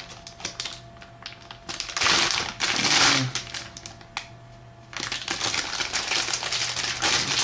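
Plastic bag being pulled and torn at to get it open, crinkling with many scattered sharp clicks; the crinkling swells about two seconds in and again from about five seconds on.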